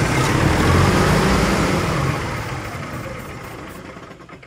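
Semi-truck diesel engine running after a fuel pump change, loudest about a second in, then dying away over the last two seconds. A fuel-feed problem was later found on this engine.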